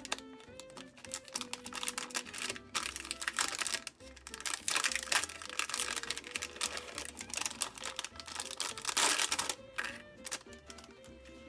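Background music with a gentle melody, over the crinkling and clicking of packaging being handled and opened, loudest in a burst of crinkling about nine seconds in.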